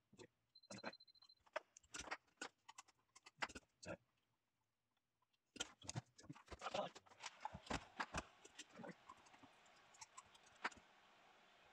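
Light, scattered clicks and taps from handling a small circuit board and soldering resistor leads into it with a soldering iron, with a short high beep near the start.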